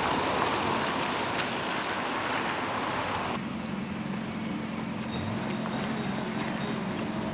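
Outdoor street ambience: a steady rushing noise of traffic and wind. About three and a half seconds in it drops abruptly to a quieter hiss with a low steady hum.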